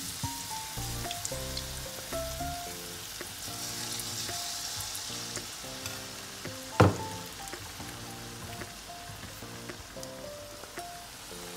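Bakwan fritter batter frying in hot oil in a steel wok, a steady sizzle, under background music with a simple stepped melody. One sharp knock sounds about seven seconds in.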